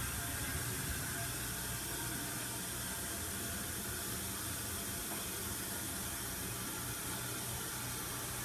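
Crane Hymont toilet refilling after a flush: a steady hiss of water running in, without a break.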